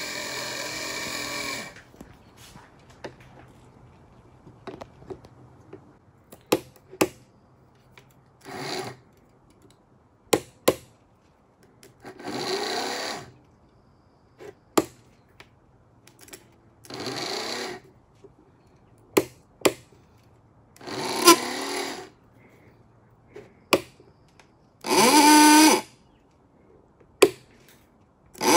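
Rewound Ford Model A electric horn sounding in short buzzing honks of one to two seconds, six or seven times, with sharp clicks between. It is being test-sounded while its adjustment is set after the field coils were rewound.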